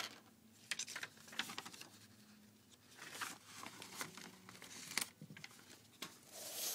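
Paper documents being handled and shuffled: scattered rustling and crinkling with a few sharp clicks, and a longer rustle near the end.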